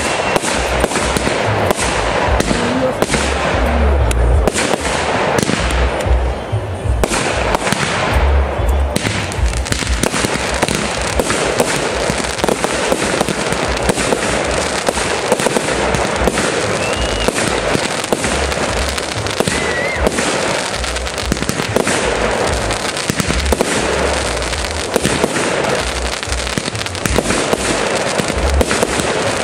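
Fireworks display: aerial shells bursting one after another in a dense, continuous barrage of bangs and low booms.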